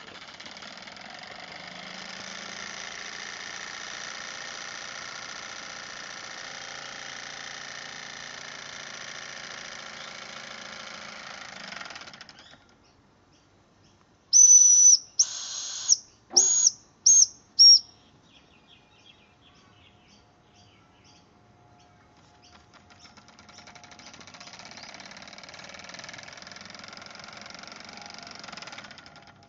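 Toy steam engine with a live-steam boiler running with a steady hiss and whir, then falling quiet. About fourteen seconds in its steam whistle gives five loud, high toots, two longer then three short. The engine then runs again with the same steady hiss over the last several seconds.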